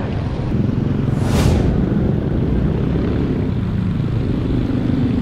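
Wind rumbling and buffeting on the microphone of a riding cyclist's camera. Traffic passes: a brief whoosh about a second in, and a motor vehicle's engine hum near the end.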